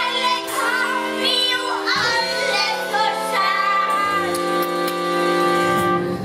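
Children singing a song with musical accompaniment, ending on a long held note.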